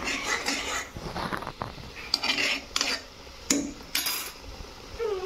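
A steel spoon scraping and clinking against a saucepan while stirring poha (flattened rice) cooking in water. The strokes come irregularly and stop about four seconds in.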